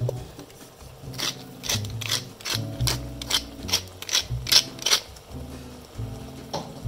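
Hand pepper mill being twisted over the pan: about a dozen quick ratcheting grinding clicks, three or four a second, starting about a second in and stopping near five seconds.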